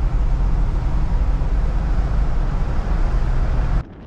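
1974 Ford Gran Torino Elite's V8 engine and road noise at cruising speed, heard from inside the car as a steady loud drone. Near the end the sound drops suddenly to a much quieter level.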